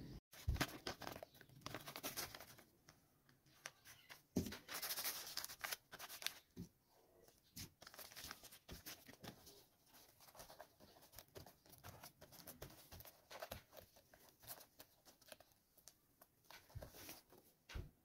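Faint rustling and crinkling of paper strips being laid and pressed onto a cardboard model car body for papier-mâché, in short scattered crackles with a busier stretch about four seconds in.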